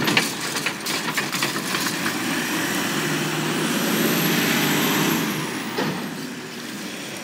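Automated side-loading garbage truck: a run of clanks and knocks as the lift arm sets the emptied trash cart back down, then the diesel engine revs up loudly as the truck pulls away, fading off after about five seconds.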